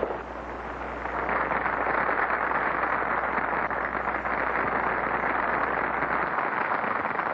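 Steady crowd din from a packed nightclub room, a dense noisy wash on an old 1930s optical film soundtrack, with a low hum underneath that cuts off near the end.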